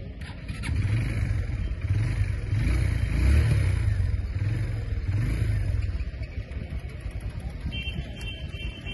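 Hero Ignitor 125cc motorcycle's single-cylinder engine running, its revs rising and falling over the first few seconds, then settling to a steady idle about six seconds in.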